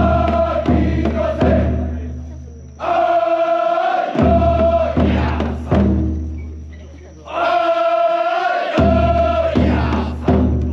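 The big taiko drum of a shachi daiko festival float is struck in sets of three heavy beats, each ringing out and fading. Between the sets, a group of men answers with a chant in unison. Drumming and chant alternate in a steady cycle of about four and a half seconds.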